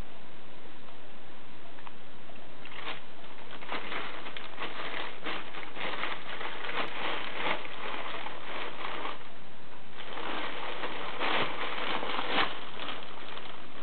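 Plastic toilet-roll packaging bag rustling and crinkling as a cat pushes into it and moves about inside it, in irregular bursts that start about three seconds in, pause briefly near the middle and pick up again.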